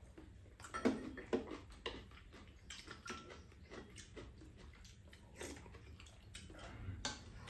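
Two people eating at a table: scattered short clinks of spoons and chopsticks against bowls and a pan, with slurping and chewing.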